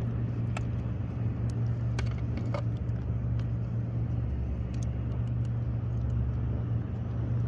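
A steady low motor drone that holds one pitch throughout, over an even hiss of moving water, with a few small clicks and taps scattered through it.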